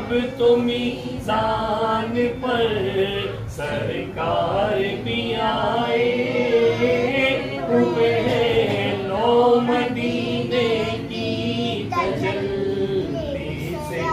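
A group of men singing an Urdu naat together, unaccompanied, in long drawn-out melodic lines.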